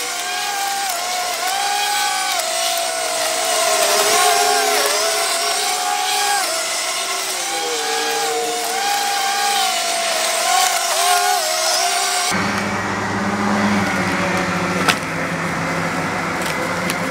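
Electric walk-behind lawn mower running while cutting grass. Its motor whine dips and recovers in pitch as it takes the load. About twelve seconds in, the sound changes abruptly to a duller, lower hum.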